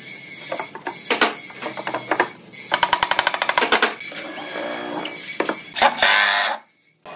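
Cordless power drill/driver working in pine boards: a fast, rattling hammer of the tool driving a screw a few seconds in, then the motor whining steadily as it bores, and a loud grinding burst near the end that cuts off suddenly. A few knocks of wood being handled come before.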